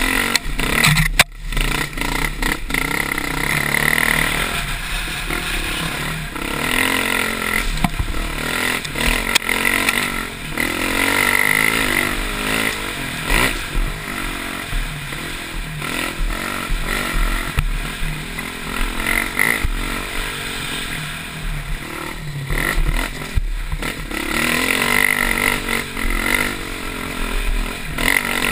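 Dirt bike engine revving up and down as it climbs a rough, muddy trail, with the bike clattering over the ground. There is a sharp knock about a second in.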